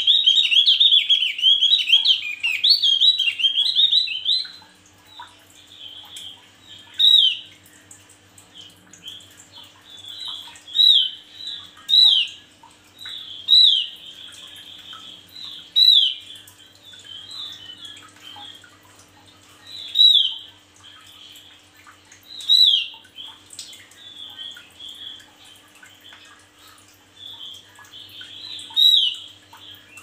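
Male Javan grey-throated white-eye (opior jawa) singing in full voice. A loud, rapid run of high, twittering notes lasts about four seconds. Then come single sharp, downward-sliding calls every couple of seconds, with softer chirps between them.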